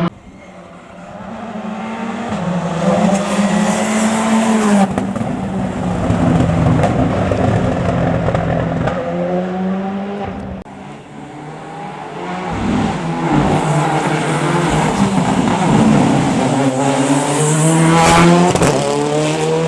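Rally cars at full attack, their engines revving hard and falling back through gear changes as the cars come up, with a brief tyre squeal. Two loud passes, the second building to the loudest point near the end.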